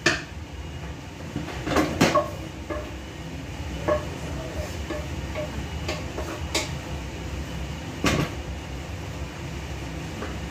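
Spatula knocking and scraping against a cooking pan as food is stirred and scraped out onto a plate: about six separate clanks, over a steady low rumble.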